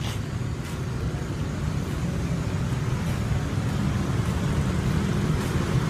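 Steady low rumble of city street traffic, with a few faint clicks.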